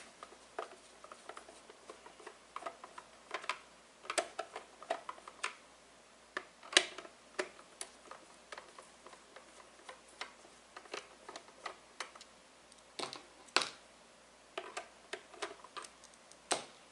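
A screwdriver backing screws out of a plastic humidifier base: scattered, irregular light clicks and ticks, a few of them louder.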